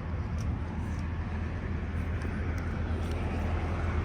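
Diesel semi-truck engine idling: a steady low rumble, with a few faint clicks over it.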